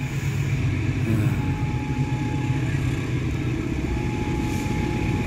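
Long freight train of cement wagons rumbling past on the rails, a steady low rumble with a faint thin whine that comes and goes.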